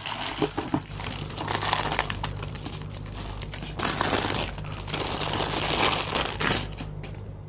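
Crinkling and rustling with many small clicks as small fishing-reel parts are handled, swelling louder a few times, over a steady low hum.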